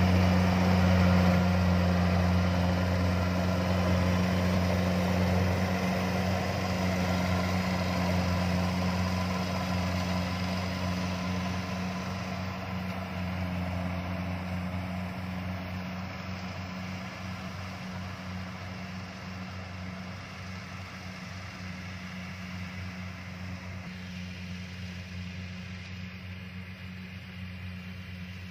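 Kubota DC-70 combine harvester running as it cuts and threshes rice: a steady engine drone with a low hum under the noise of its cutting and threshing machinery. It fades gradually as the machine moves away.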